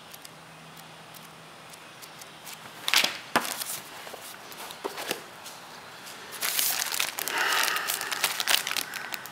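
Quiet handling of a paper manual, two sharp knocks about three seconds in, then a plastic-wrapped military poncho packet crinkling in the hands for a couple of seconds near the end.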